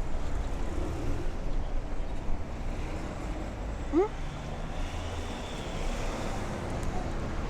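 Street traffic: a steady low rumble of passing vehicles, with one brief rising squeak about four seconds in.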